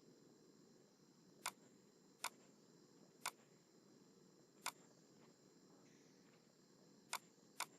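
Six sharp computer mouse clicks at uneven intervals, two of them close together near the end, over faint steady background hiss.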